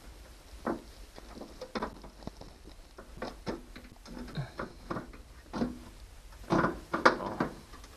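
Irregular clicks, knocks and scrapes of a wiper motor being handled and worked into its mounting hole in a vehicle door panel, with a louder cluster of knocks near the end.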